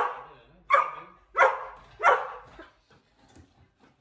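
Rough collie barking: four loud, sharp barks about two-thirds of a second apart, then stopping.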